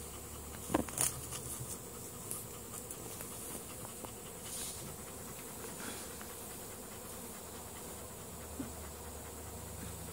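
A swarm of honeybees buzzing as a faint, steady hum, with a couple of short clicks about a second in.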